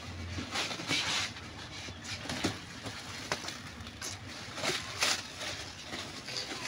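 Clear plastic wrap crinkling and rustling in irregular bursts as it is cut with scissors and pulled off a scooter seat, with a few sharp clicks.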